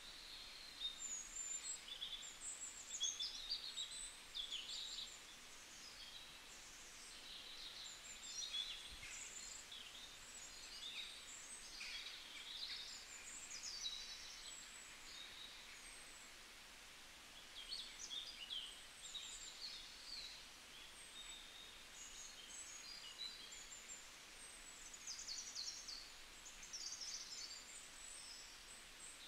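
Faint birdsong ambience: many small birds chirping and twittering in quick high calls over a steady soft hiss, denser at the start and again near the end.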